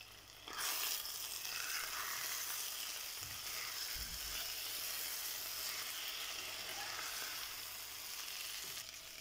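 Small pieces of pork frying in oil in an earthenware pot, with a steady sizzle that starts about half a second in, while a wooden spatula stirs them. The liquid has cooked off and the meat is now dry-frying into a Kerala pork fry (ularthu).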